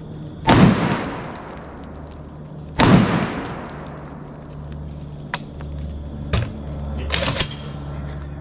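Two shots from a Barrett M82 .50 BMG rifle, about two seconds apart, each followed by a long rolling echo. Several fainter sharp cracks follow in the second half.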